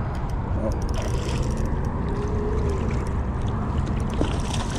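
Wind buffeting the microphone as a steady low rumble, with scattered small clicks and light splashing from a hooked trout being played at the surface in shallow water.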